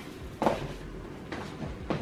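A few soft knocks and shuffles, three strokes in all, as a person gets up from a wooden chair with a woven cane seat and steps across a wooden floor.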